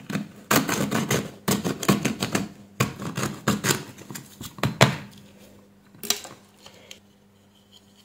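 Hands working a plastic flashlight battery-pack casing: a run of rapid, crackly clicks and scrapes lasting about four seconds, then one more short burst about six seconds in.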